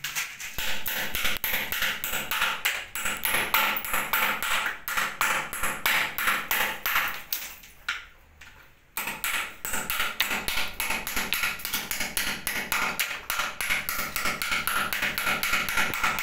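Rapid hand-tool strikes chipping old tile and mortar off a bathroom wall, about four or five sharp taps a second. The chipping stops for about a second roughly halfway through, then carries on.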